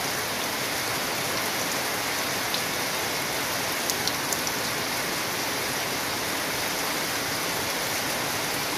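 Steady rain falling on grass and leaves at night, an even hiss with a few sharper drop ticks around the middle.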